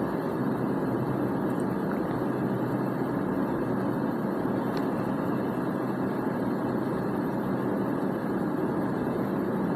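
Steady, even machine-like background hum with no distinct events, such as a running fan, air conditioner or distant engine noise.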